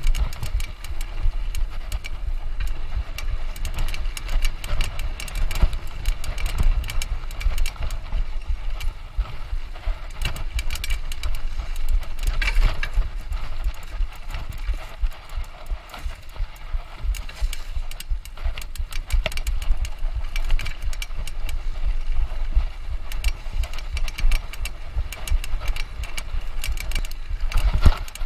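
Mountain bike ridden over rough trail, rattling with constant irregular knocks over a heavy low rumble.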